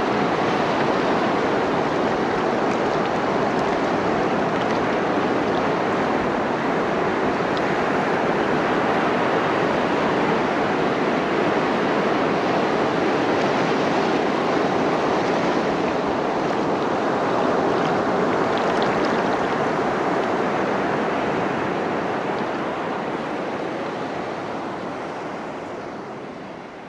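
Ocean surf washing over and around rocks on the shore, a steady wash that fades out over the last few seconds.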